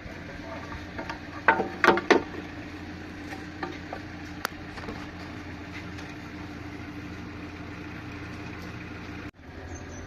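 Maruti Suzuki Ertiga engine running steadily with an abnormal noise, the sign of a stretched timing chain and worn tensioner. A few sharp knocks come about a second and a half to two seconds in, and one more near four and a half seconds.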